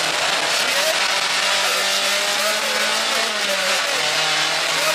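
Rally car's engine running under load on a gravel stage, heard from inside the cabin over a steady rush of tyre and road noise. The engine note rises slightly, then drops back about three-quarters of the way through.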